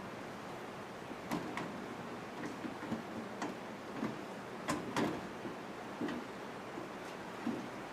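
Irregular light clicks and small knocks of computer parts being handled, metal and plastic tapping as the motherboard is worked loose from the PC case, over a steady hiss. The loudest pair of clicks comes about halfway through.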